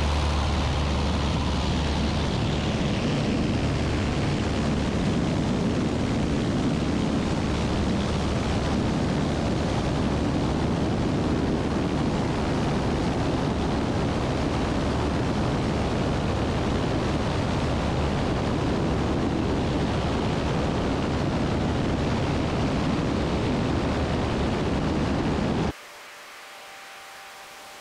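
Light aircraft's propeller engine at takeoff power through the takeoff roll and climb-out, mixed with heavy wind noise on the wing-mounted camera in a steady, even rush. Near the end the sound cuts off suddenly, leaving a faint low hum.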